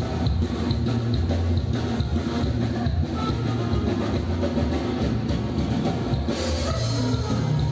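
A live dance band playing, with drum kit, a steady bass line and guitar keeping an even dance beat.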